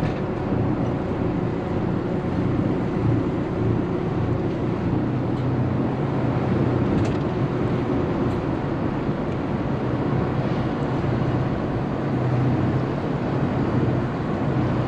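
A 1999 Carver 504 motor yacht's engines running steadily at low speed as the boat manoeuvres slowly out of its marina slip: a constant low hum.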